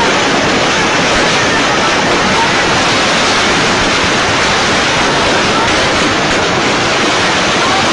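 Loud steady hiss, like rushing water, from a noisy recording of a Kurdish song, with a faint wavering melody line under it and no words sung.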